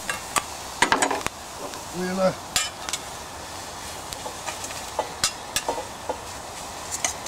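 Spatula scraping and knocking against a metal frying pan as fried onions are tipped out into a Dutch oven. It comes as a series of sharp clicks and scrapes, busiest about a second in, over a steady hiss.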